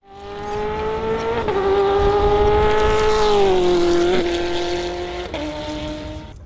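Race car engine held at high revs, its pitch dropping in steps a few times and sliding lower through the middle, fading in at the start and out at the end.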